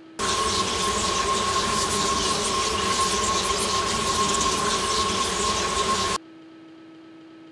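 Loud rushing roar of noise with a steady high ringing tone running through it. It cuts in abruptly about a quarter second in and cuts off just as abruptly about six seconds in, dropping to a faint steady hum.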